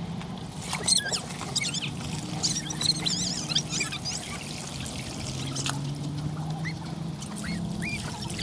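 Water running from a garden hose over a raw whole chicken and splashing into a plastic tray as the bird is rinsed.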